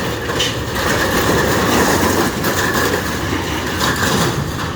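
Scrap metal clanking and scraping as a grapple machine lifts a load of scrap off a trailer, over the steady running of the machine, with a couple of sharp metallic knocks.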